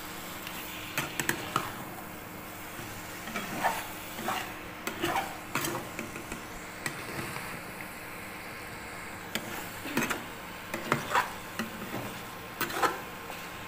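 A spatula stirring chunks of chicken and potato in a nonstick frying pan: irregular scrapes and knocks against the pan, several clusters spread through, over a steady low hiss.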